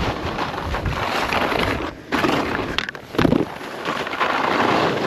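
Wind buffeting the microphone and skis scraping over snow while skiing. There is a brief break near two seconds and a sharp knock just under three seconds in.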